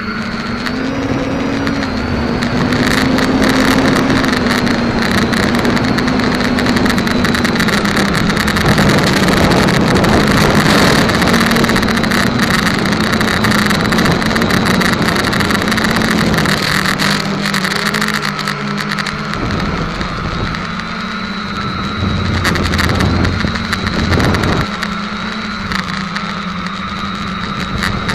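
Quadcopter's electric motors and propellers humming up close, the pitch stepping up and down as the throttle changes, with a rush of air noise.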